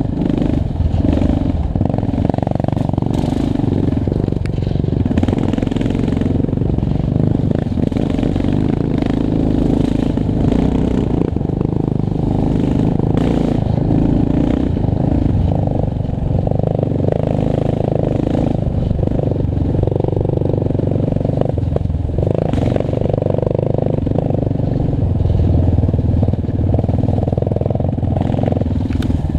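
Yamaha Raptor 700 ATV's single-cylinder four-stroke engine running under changing throttle while riding a rough dirt trail, with a few sharp knocks from the quad bouncing over bumps.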